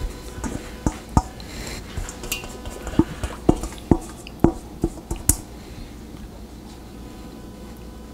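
Silicone spatula scraping and knocking against a stainless steel mixing bowl to get out the last of a thick cream-soup mix: about a dozen sharp clinks in the first five seconds or so, then only quiet spreading.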